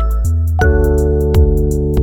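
Background music: sustained keyboard-like chords with a steady beat of short percussive strikes.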